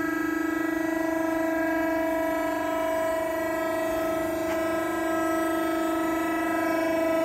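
Kingsland 85XS hydraulic punch and shear, its 7.5 kW electric motor and hydraulic pump running unloaded with a steady, high-pitched hum.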